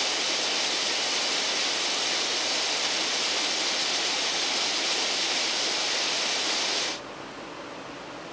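A steady, loud rushing hiss with no rhythm or pitch, strongest in the high range, which cuts off abruptly about seven seconds in, leaving a much quieter hiss.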